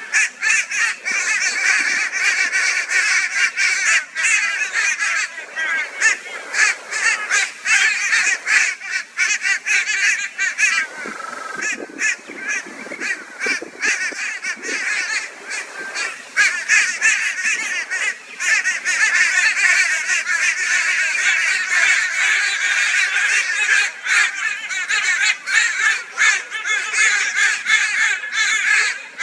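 A flock of crows giving loud, raucous, overlapping calls without pause: the crows are mobbing a barn owl.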